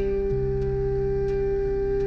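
Soft ambient background music with long held tones and a low drone shifting pitch once, about a third of a second in.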